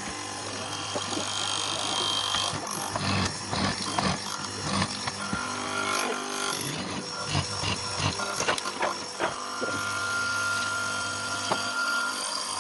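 Electric power tool running steadily with a hum, eases off in the middle, and runs again later, with irregular knocks and clatter of wood being worked.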